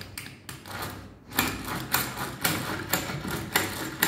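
Hand-cranked drill boring a hole through a wooden board, making a burst of scraping with each turn of the crank, about two a second.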